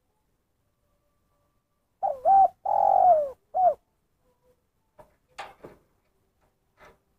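Spotted dove cooing one phrase of its single-kuk ('kuk satu') call: a short note, a long falling note, then a short closing note. A few faint clicks follow near the end.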